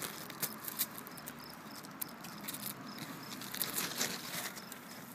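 Squash leaves and stems rustling and crackling as hands push through the plants, with a faint insect chirping repeating steadily at a high pitch.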